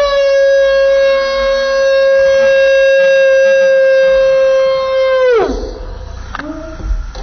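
One person's long, high scream of fan excitement, held at one steady pitch, then dropping sharply and breaking off about five seconds in.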